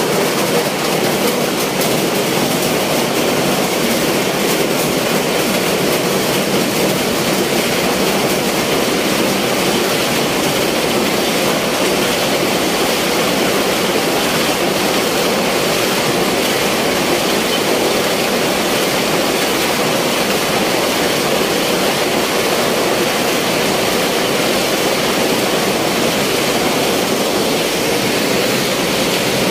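Ice-making machine in an ice plant running with a loud, steady mechanical din while ice pours down its discharge chute into a steel hopper.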